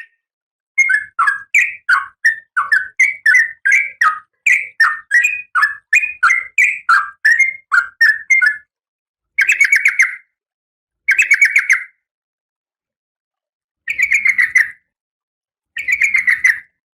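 Female oriental magpie-robin (kacer) calling: a run of short, quick call notes at about three a second, then four separate harsh chattering bursts, each under a second long, a second or two apart.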